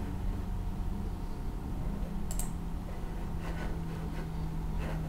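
Quiet room with a steady low hum, broken by a few faint clicks: one about two seconds in and a couple more near the end.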